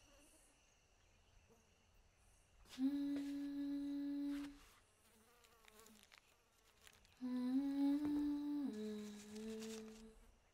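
A person humming a slow wordless tune in long held notes: one sustained note a few seconds in, then after a pause a second phrase that steps up slightly and then drops lower.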